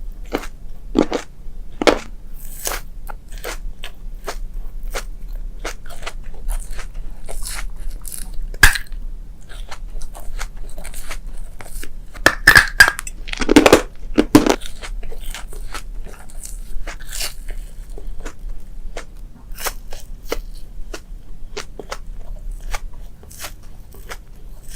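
Crunchy food being bitten and chewed up close: a steady run of crisp crunches, with a louder cluster about halfway through.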